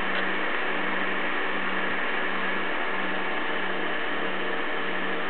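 An SWF embroidery machine's X and Y drive running under test: a steady machine hum with hiss, and a low tone that drops out briefly about once a second.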